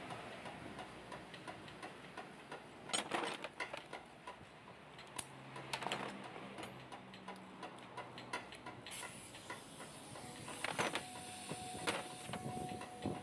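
Hand tools working on a car's front suspension: light, scattered metal ticks and clicks, with louder clusters of sharp metal clinks about three seconds in, near six seconds and again around eleven and twelve seconds.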